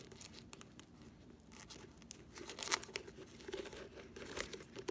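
Crinkling and crackling of a flexible foil dryer vent duct being handled, with scattered sharp clicks, as a zip tie is worked through holes in its ends.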